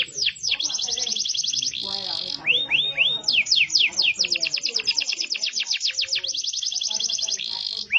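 Domestic canary singing: fast rolls of repeated, quickly falling notes, about ten a second, broken twice by a short buzzy phrase and once by a few slower falling notes.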